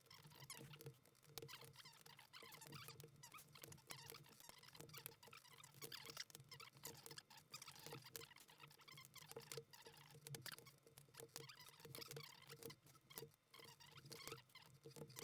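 Sped-up sound of plastic keycaps being pulled off and pressed onto a keyboard: a fast, dense stream of small clicks and clatter, pitched up by the speed-up, over a low steady hum.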